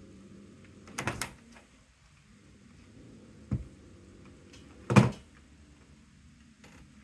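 Three dull knocks: a quick double knock about a second in, a short low thump midway, and a louder, sharper knock about five seconds in.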